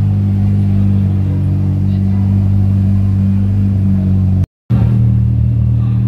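Mitsubishi Lancer Evolution V's turbocharged four-cylinder engine running at low revs, a steady deep drone from the exhaust. The sound drops out for a moment about four and a half seconds in, then resumes.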